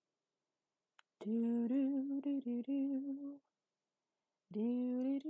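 A woman humming a wordless tune as 'elevator music': two phrases of held notes that slide between pitches, the first starting about a second in and the second near the end, with a faint click just before the first.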